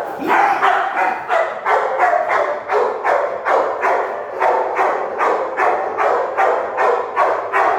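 A dog barking rapidly and without pause, about three barks a second.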